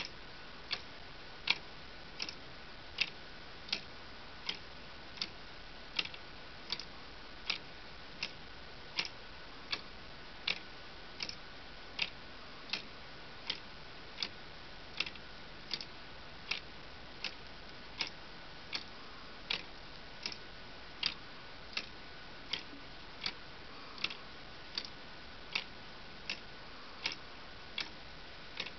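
Lego clock escapement ticking steadily, its plastic parts clicking about once every three-quarters of a second.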